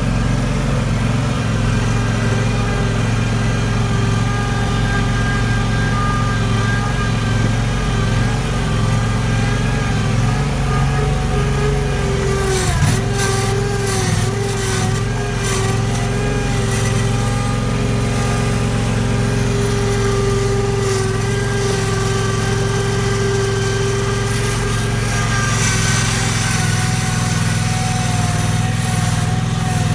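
Kawasaki 26 hp liquid-cooled V-twin engine of a skid steer running steadily while the machine is driven. About 13 seconds in, the engine pitch dips briefly and there is a spell of knocking and rattling. A hiss rises from about 26 seconds in.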